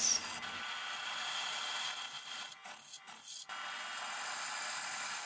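Drill press boring holes through a 5160 spring-steel knife tang with a 3/16-inch bit: a steady hiss of the bit cutting metal, which drops out briefly twice just past the middle.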